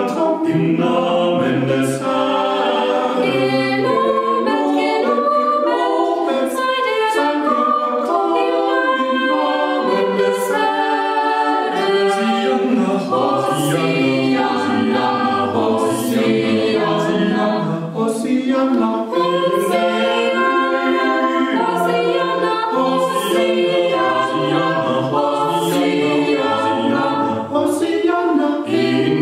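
A small family choir singing a cappella, several voices together in a continuous sung passage.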